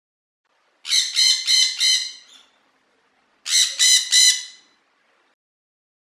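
High-pitched squawking animal calls in two quick bursts: four calls, then a short pause, then three more.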